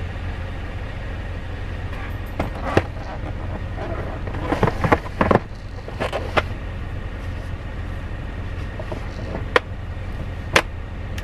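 Infant car seat carrier being set down and latched into its base on the back seat: a series of clicks and plastic knocks, busiest about halfway through, with two single clicks near the end. A steady low vehicle hum runs underneath.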